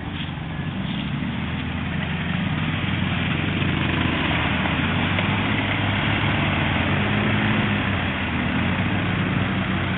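An ATV's engine running as the quad drives through mud. It grows louder over the first few seconds as the machine comes close, holds, and eases off slightly near the end.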